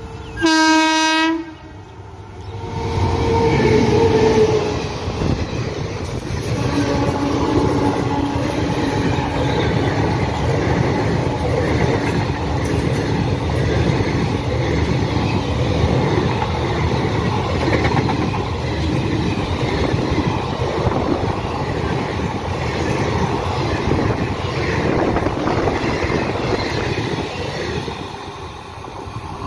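Indian Railways WAP-7 electric locomotive gives a short horn blast about half a second in. The locomotive and its express coaches then pass at speed: a loud, continuous train rumble with clickety-clack of wheels over the rail joints, easing off near the end as the last coach goes by.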